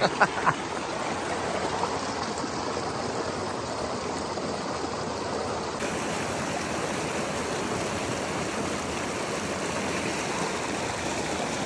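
Mountain stream running steadily, with a few brief sharp sounds right at the start.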